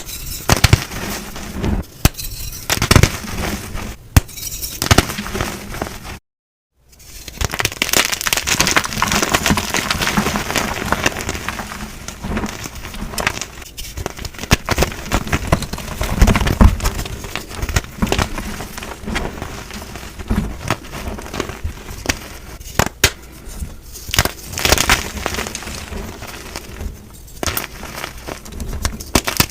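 Blocks of gym chalk being crushed and crumbled, a dense crunching and crackling with many sharp snaps, cut off by a brief silence about six seconds in before the crunching resumes.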